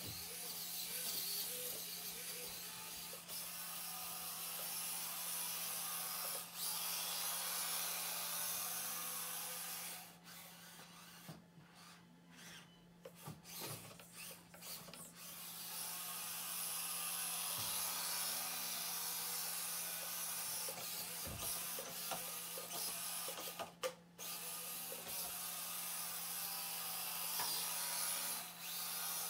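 Axial SCX-24 mini rock crawler driving on carpet: its small electric motor and gears whirring, with tyres scuffing the carpet. It stops for several seconds about ten seconds in, then drives on, pausing again briefly near the end.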